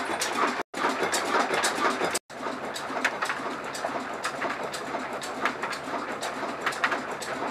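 Belt-driven flour mill (chakki) powered by an old Ruston Hornsby single-cylinder diesel engine, running steadily: a constant mechanical clatter with frequent irregular sharp ticks. The sound drops out briefly twice near the start.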